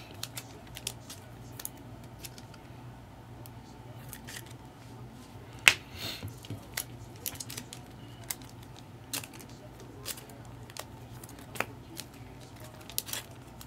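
Trading card packs and cards being handled: scattered crinkles and sharp clicks, with one louder snap about six seconds in, over a faint steady hum.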